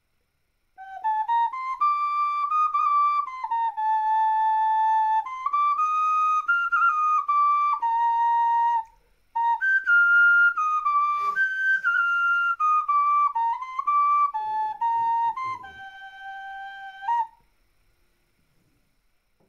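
Clay ocarina playing a slow melody of held notes that step up and down, with a brief break about halfway through; it stops a couple of seconds before the end.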